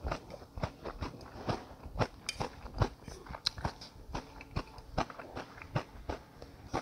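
Close-miked mouth sounds of a person chewing a mouthful of beef brisket and rice noodles: irregular short clicks and smacks, a few each second.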